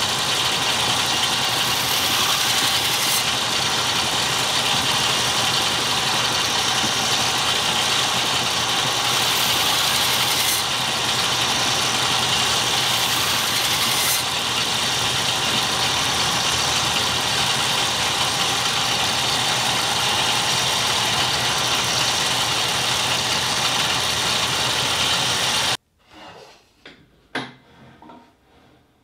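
Belt grinder running with a fine-grit belt while a steel knife blank cut from a circular saw blade is held against it: a loud, steady grinding noise. It cuts off abruptly near the end, leaving a few faint knocks.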